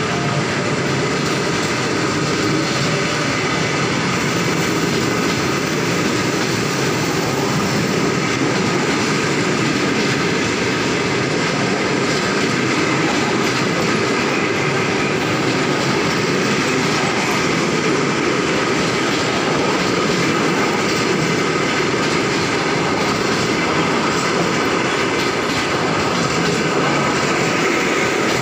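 Passenger coaches of two trains pulling out on the tracks either side of the platform, their wheels running on the rails in a loud, steady noise.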